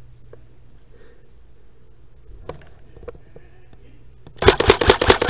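An airsoft gun firing a rapid burst of shots, starting near the end after a few seconds of faint scattered clicks.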